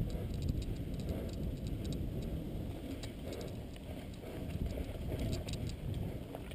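Cross-country mountain bike rolling fast down a dirt singletrack: a steady rumble of tyres and wind on the bike-mounted camera, with scattered light ticks and rattles from the bike.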